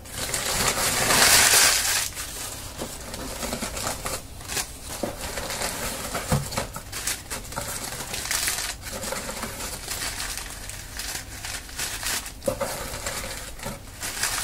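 Crumpled newspaper packing crinkling and rustling as hands pull it out of a cardboard box, loudest in a burst in the first couple of seconds, then a steady run of crackles.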